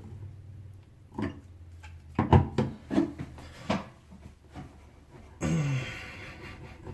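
Short knocks and clicks of a faucet valve being worked into its housing, with a man's grunts of effort. About five and a half seconds in there is a long breathy sigh that falls in pitch.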